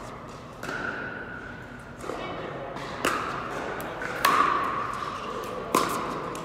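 Pickleball paddles hitting a plastic pickleball in a rally: a string of sharp, hollow pops, the two loudest in the second half. Each pop rings on in the echo of the large indoor hall.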